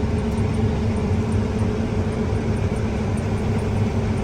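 Steady low engine and road drone of a vehicle, heard from inside its cab.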